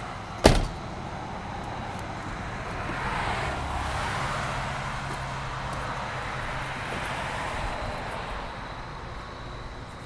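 Steady road traffic noise, swelling for a few seconds about three seconds in, with one sharp knock about half a second in.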